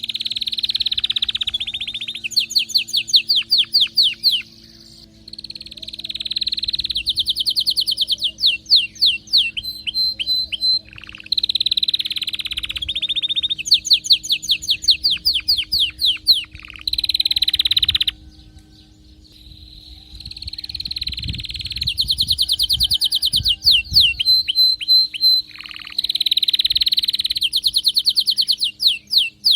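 A male domestic canary in full song, excited and in breeding condition. It sings long phrases of fast, rapidly repeated trilled notes and sweeps, broken by brief pauses between phrases.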